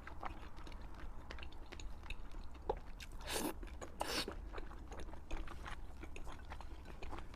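A person chewing fried pork in mouthfuls: a steady run of small wet mouth clicks, with two louder bites or breaths a little past the middle.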